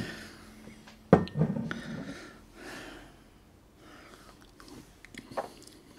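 A glass whisky bottle is set down on a tabletop with a sharp knock about a second in, followed by breathy snorts through the nose, like a quiet chuckle.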